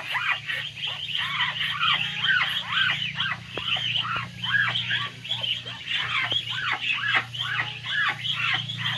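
Muscovy ducklings peeping nonstop, many short high chirps a second overlapping one another, over a steady low hum.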